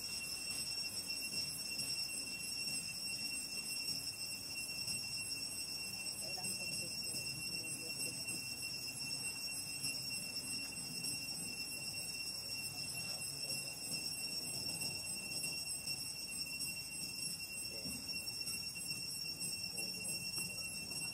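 A steady high-pitched whine with evenly spaced overtones, over a faint low murmur of background sound.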